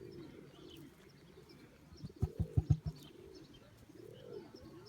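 Emu's low rumbling drum: a quick run of about six deep thumping pulses a little after two seconds in, then a shorter, softer low call near the end.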